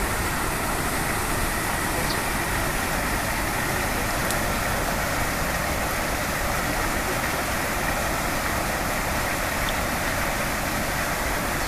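Steady rushing of creek water running past the beaver dam and into the culvert.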